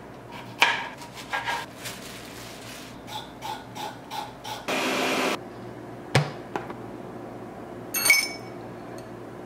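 Kitchen knife chopping carrots on a plastic cutting board: a string of sharp knocks through the first four seconds. About five seconds in comes a half-second rush of noise and just after six seconds a single thud. Near the end a straw clinks against a drinking glass with a brief ring.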